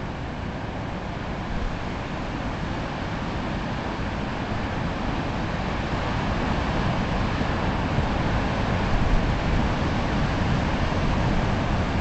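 Pacific surf breaking on a rocky shore below a cliff: a steady roar of waves that slowly grows louder, with wind buffeting the microphone.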